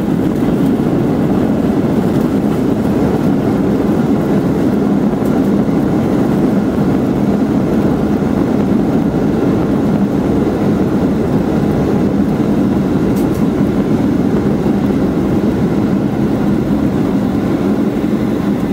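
Steady cabin noise inside a Boeing 737-800 rolling on the ground after landing: its CFM56-7B engines running along with the low rumble of the airframe and wheels on the pavement.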